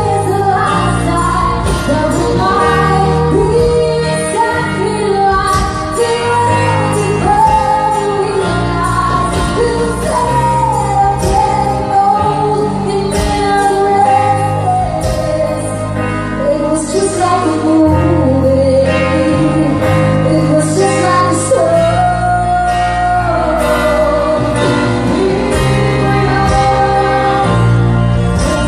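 Live band playing a pop ballad with a woman singing lead through a microphone, over electric guitar, bass and drums.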